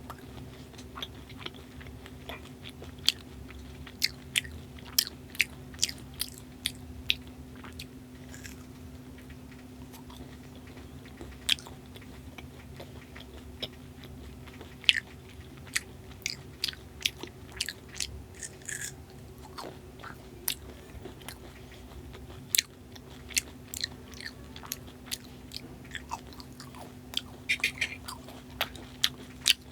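Close-miked chewing of Indian sweets, with irregular wet mouth clicks and smacks, over a steady low hum.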